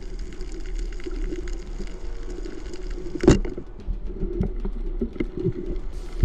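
Underwater ambience on a reef at night: a steady low hum with scattered small clicks and crackles, and one sharp, loud crack about three seconds in.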